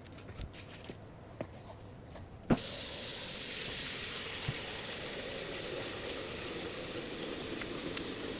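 A sharp click about two and a half seconds in, then water running steadily from a tap, which fits filling the steamer's base pot with water.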